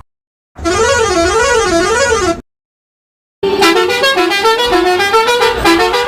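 Novelty vehicle horns. First a warbling horn wavers up and down about four times for nearly two seconds. After a second's pause, a musical horn plays a quick tune of stepping notes.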